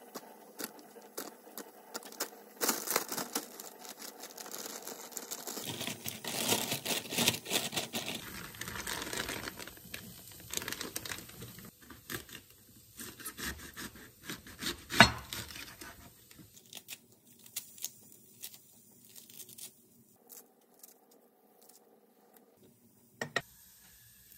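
Paper towel crinkling as lotus root slices are patted dry on it, then a kitchen knife cutting into a head of cabbage on a wooden chopping board, with sharp cracks as the leaves split and the blade meets the board.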